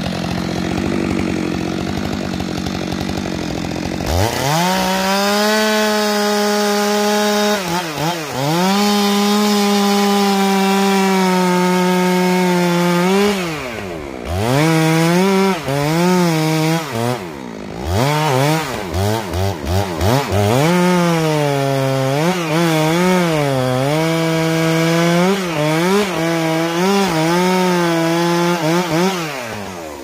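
Stihl chainsaw revving up about four seconds in and cutting at full throttle into a spruce trunk for the felling cut behind the face notch. Its pitch holds steady, then dips and recovers again and again under load and as the throttle is eased, and drops away near the end.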